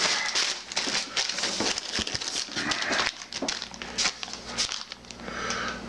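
Plastic air-pillow packing crinkling and rustling as it is handled and pulled out of a cardboard box, in irregular crackly bursts.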